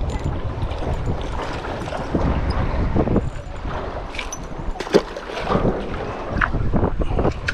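Wind buffeting the microphone over small waves lapping at a floating dock, with a single sharp click about five seconds in.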